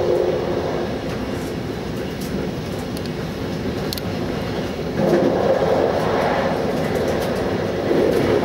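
MI2N double-deck electric train running along the track, heard from the driver's cab as a steady rolling and running noise. It grows louder about five seconds in as the train enters a covered tunnel section, and again near the end.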